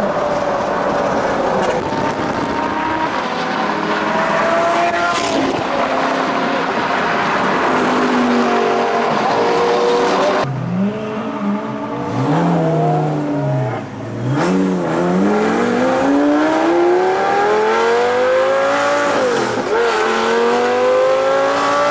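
Lamborghini supercar engines revving, the pitch rising and falling. About halfway through, it changes to one engine heard from inside the car, accelerating hard with long climbing revs and a sharp drop at each upshift, twice.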